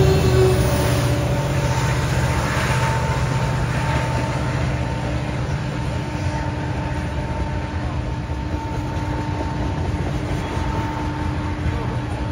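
Norfolk Southern mixed freight train rolling past close by: the locomotive's engine gives way to a steady rumble of freight car wheels on the rails, easing off slightly after the first couple of seconds.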